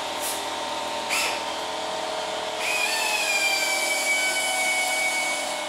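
A handheld power drill runs for about three seconds from about halfway in, a motor whine whose pitch sags slightly as it works. Two short clicks come earlier, over a steady hum of shop background noise.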